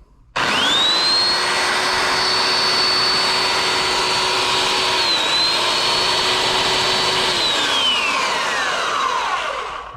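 Porter-Cable 352VS 3x21 variable-speed belt sander starting up with a quick rising whine, then running at speed with a steady high whine over belt hiss, dipping briefly about halfway. Over the last two seconds or so its pitch falls steadily as the sander slows.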